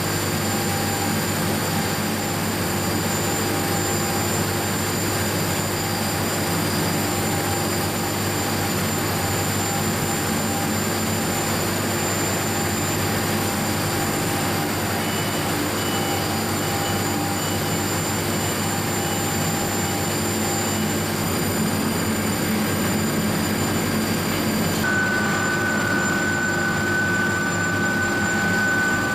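Steady industrial drone from a copper melting furnace plant, made up of a constant hum with several steady tones. About 25 seconds in, a higher steady whine joins it.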